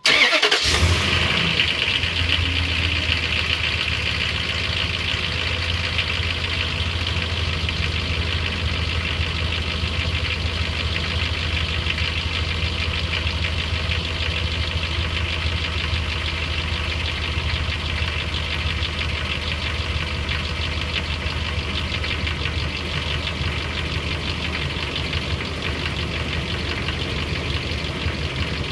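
2003 Dodge Ram 1500's 4.7-litre V8 starting from cold and settling into a steady idle with a rapid knocking. The knock comes on every cold start; the owner suspects a broken passenger-side exhaust manifold bolt, with bad lash adjusters or a timing chain as other possible causes.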